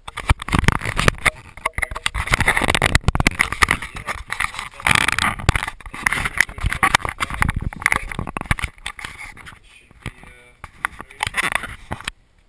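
Bathtub water sloshing and splashing, picked up by a camera set underwater, with many knocks and scrapes; it quietens about nine seconds in.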